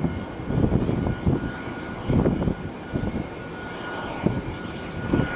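Jet engines of a taxiing Airbus A320 running with a steady whine. Several irregular gusts of wind buffet the microphone and are the loudest thing heard.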